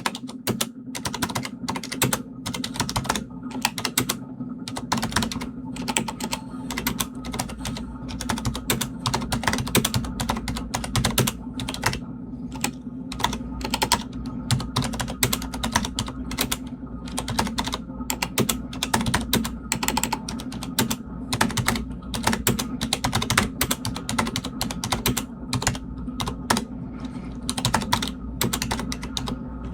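Fast, continuous typing on a Corsair STRAFE mechanical keyboard with Cherry MX Silent switches: a dense, irregular run of soft, damped key clicks.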